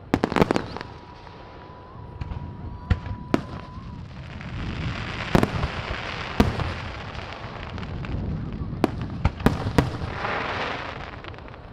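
Aerial fireworks display: a rapid series of sharp bangs from bursting shells, with stretches of dense crackling about four seconds in and again near the end.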